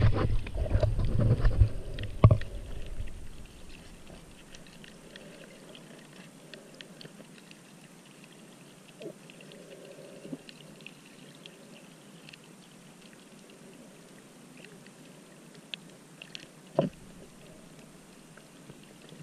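Underwater sound picked up by a camera submerged in a rocky tidal pool: loud rumbling and knocking in the first three seconds, then faint, steady crackling and ticking in the water, with a single sharp knock near the end.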